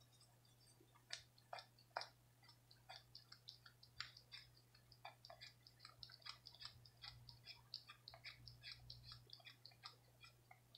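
Cat licking yogurt out of a plastic cup: quiet, quick wet clicks of its tongue, several a second, with a few louder clicks in the first two seconds.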